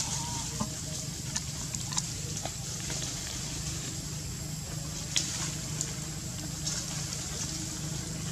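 Steady outdoor background hiss with a few short, sharp crackles and snaps of dry leaves and twigs as macaques move through the undergrowth.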